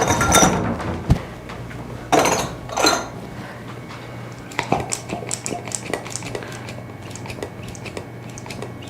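Cupping cups clinking and knocking as they are handled and set out, followed by a long run of small, quick clicks as the cups are put on the patient's back.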